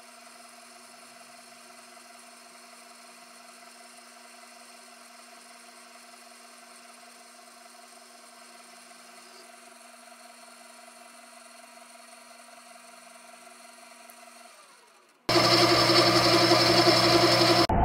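Metal lathe running while a boring bar cuts inside a spinning disc: a faint, even hum with a steady whine. About fifteen seconds in it fades out and loud music cuts in abruptly.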